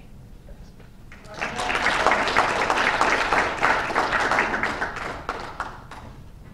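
A small audience applauding, starting just over a second in and fading away after about four seconds.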